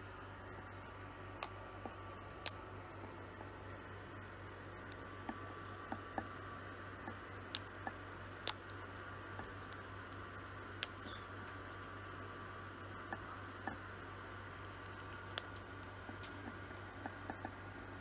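Lutino cockatiel pecking and cracking seed in a ceramic dish: sharp, irregular beak clicks a second or several apart, with a cluster of lighter ones near the end, over a steady low hum.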